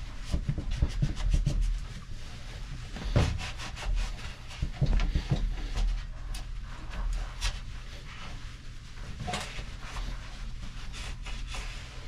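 Cloth rag rubbing and wiping over a motor's bearing housing and pulley to clear away excess grease, in irregular strokes of varying strength, over a steady low hum.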